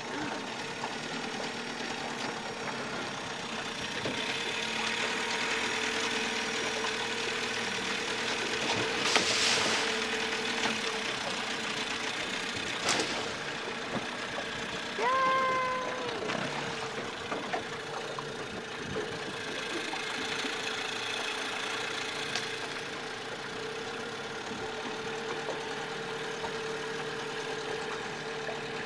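Flatbed dump truck engine running with a steady hum while the truck is at the water's edge unloading a dock. A brief loud rush of noise comes about nine seconds in, a sharp click a few seconds later, and a short pitched tone around fifteen seconds in.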